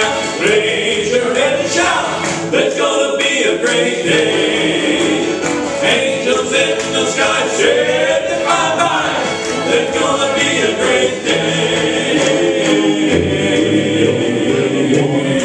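Male gospel quartet singing in close harmony into microphones, with an acoustic guitar strummed along.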